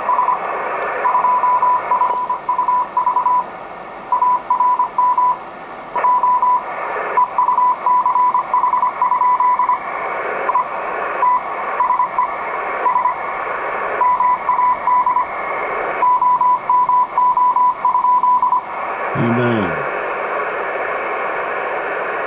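Icom IC-718 HF transceiver's speaker playing a received Morse code (CW) signal: a steady tone of about 1 kHz keyed on and off in dots and dashes over band hiss. The keying stops near the end, with a brief falling sound, leaving only the hiss.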